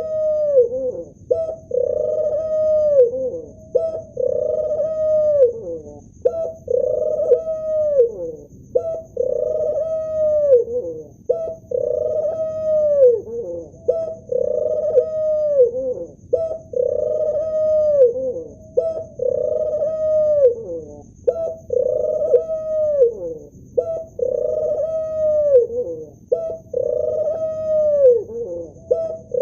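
Male ring-necked dove cooing, the same low rolling coo repeated about once every two seconds, each call swelling and then dropping away in pitch.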